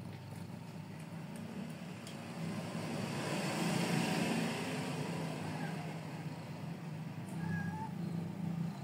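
Cat purring steadily, a low pulsing rumble close to the microphone. A broad hiss swells and fades in the middle.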